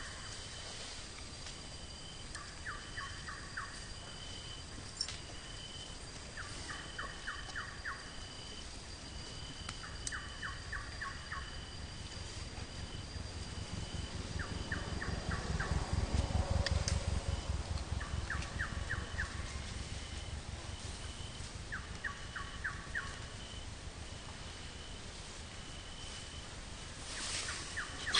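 Outdoor wildlife ambience: a short rattle of five or six quick clicks repeats every three to four seconds, a high short call repeats about once a second, and a thin steady whine stops about two-thirds of the way through. A low rumble swells in the middle.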